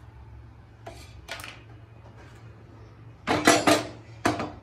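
Steel kitchen utensils knocking together: a couple of light taps about a second in, then several loud, ringing metallic clanks near the end.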